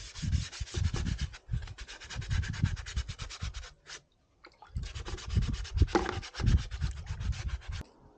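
Hand sanding in quick back-and-forth strokes, with a short pause about four seconds in.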